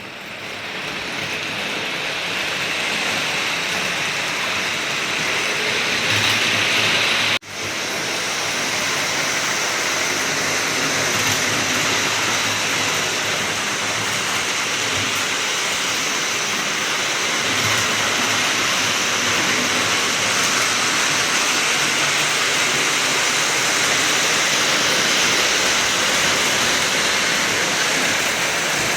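Lionel O-gauge model train running on the layout's track: a steady rushing hiss of wheels on rail and motor. The sound cuts out suddenly for an instant about seven seconds in, then carries on.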